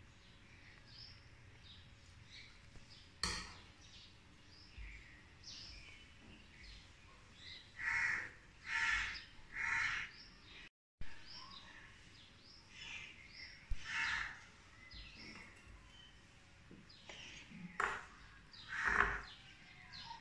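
Crows cawing in short harsh calls, a run of three about a second apart near the middle and a few more near the end, with small birds chirping throughout.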